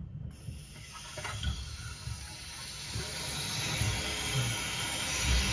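Water hissing through a toilet's angle-stop shut-off valve and supply line as the valve is slowly opened, the toilet tank refilling. The hiss starts just after the beginning and builds steadily louder as the valve opens further.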